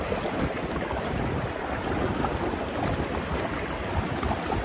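Sea surf washing on the shore, with wind rumbling on the microphone: a steady rushing noise.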